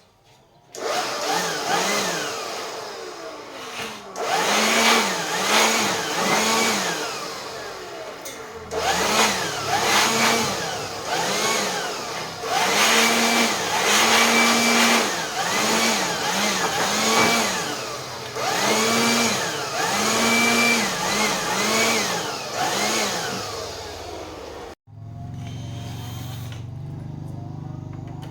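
Electric power drill motor revving up and down in quick repeated pulses, under two a second, in several runs with short breaks, then running more steadily at a lower pitch near the end.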